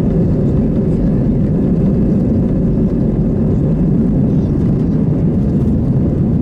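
Airbus A320 cabin noise from inside the aircraft: a steady low roar of the jet engines and airflow, unchanging in level.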